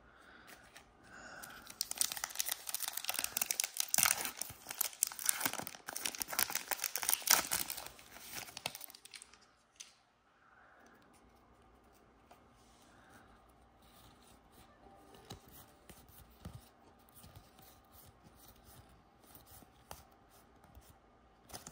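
Plastic wrapper of an NBA Hoops trading-card pack being torn open and crinkled for about seven seconds, then faint handling of the cards for the rest of the time.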